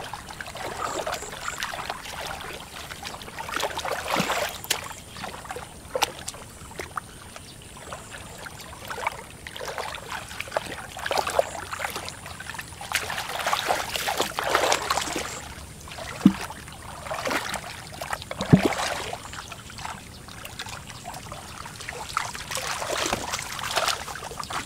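Muddy shallow water being stirred and splashed by hands and wading legs: irregular sloshing and trickling, with two sharper splashes or knocks in the second half.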